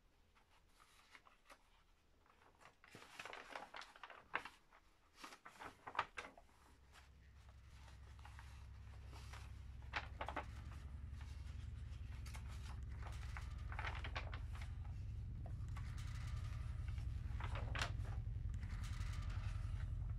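Paper pages of a large book being handled and turned: soft rustles and a few crisp page flips. From about a third of the way in, a low steady rumble fades in and grows louder beneath them.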